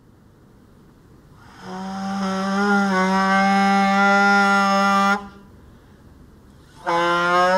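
A 3D-printed foghorn mouthpiece with a stretched membrane, blown to sound a low, steady, horn-like note. The note starts about a second and a half in, holds for about three and a half seconds with a slight wobble in pitch, and cuts off. A second note starts near the end.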